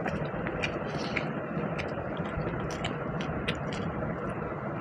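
Eating sounds: chewing and small, irregular mouth and hand clicks from someone eating pulao and chicken curry, over a steady background hum.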